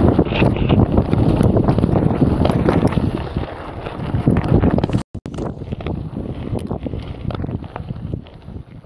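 Wind buffeting an action-camera microphone over the clatter of a mountain bike riding a rough trail: tyre noise with many small knocks and rattles. The sound cuts out for an instant about five seconds in and is quieter afterwards.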